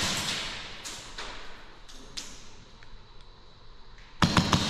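Airsoft gun fire: the echo of a burst fades at the start, a few single sharp cracks follow, and near the end comes a rapid burst of about six shots.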